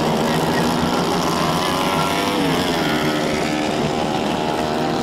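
Several 110cc racing kart engines running hard on the track, their pitches rising and falling as they accelerate and lift, with one climbing clearly about two seconds in.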